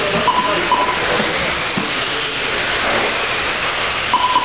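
Radio-controlled race cars running laps on an indoor dirt oval: a steady hiss of motors and tyres on the track, with a brief high whine just after the start and again near the end.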